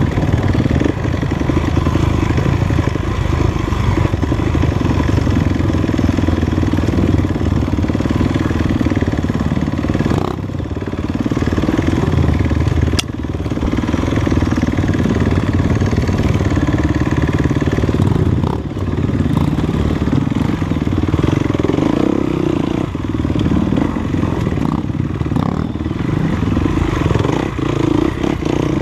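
Off-road dirt bike engine running under way on a trail, its revs rising and falling. The loudness dips briefly about ten seconds in and again near eighteen seconds. There is one sharp click at about thirteen seconds.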